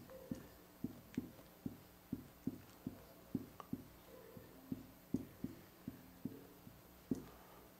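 Whiteboard marker drawing strokes on a whiteboard: a quick run of faint, short taps, about three a second, as the pen meets and leaves the board.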